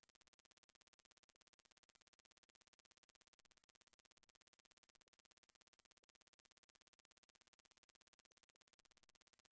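Near silence, with only a very faint, steady electronic buzz.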